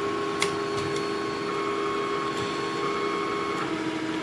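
Ultimaker 3D printer running a print, its stepper motors giving a steady hum of held tones that shift pitch about three and a half seconds in. A single light click comes about half a second in.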